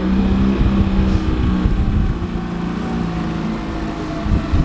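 A boat's outboard motor running steadily, its pitch easing slightly lower about halfway through.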